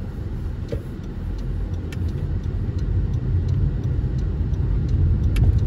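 Car engine and tyre rumble heard from inside the cabin as the car drives off, growing gradually louder as it picks up speed, with a few faint ticks.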